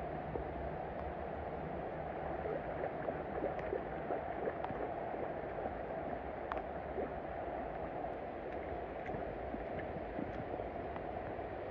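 Shallow river current flowing and lapping close by: a steady rushing wash with scattered faint ticks.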